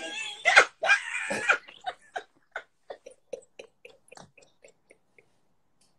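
Men laughing hard: a loud burst of laughter, then a run of short, breathless wheezing gasps, about three a second, that fade away over a few seconds.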